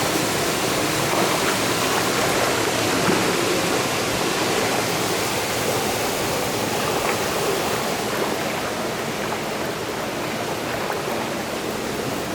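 Steady rush of water from a mountain stream pouring through a narrow gorge, easing slightly toward the end.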